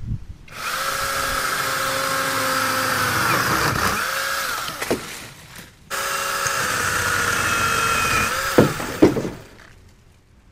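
Battery-powered pole chainsaw running in two bursts of about four seconds each while cutting tree limbs, its electric motor giving a steady whine that dips in pitch briefly near the end of each burst. A few sharp cracks follow each burst.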